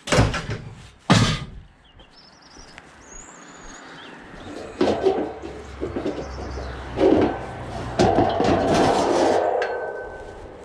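Two loud clanks of scrap metal being handled, about a second apart, then a bird chirping briefly, followed by a longer noisy rumble with a few knocks in the second half.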